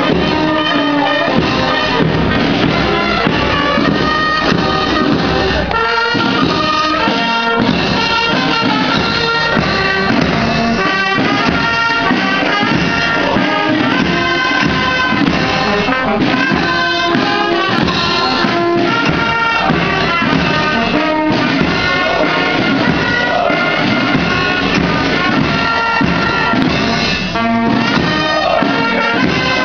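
Brass band music.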